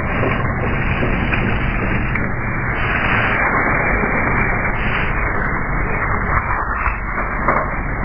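Military truck driving across wire-mesh matting laid on beach sand, its engine a low steady rumble under a constant rushing noise.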